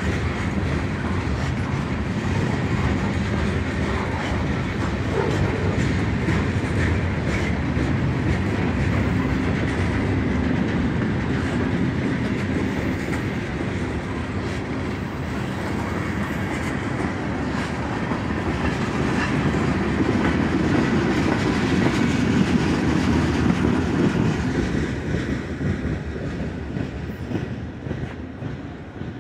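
Freight train cars rolling past close by: a steady rumble of steel wheels on rail with clickety-clack over the rail joints. The sound fades near the end as the last cars go by.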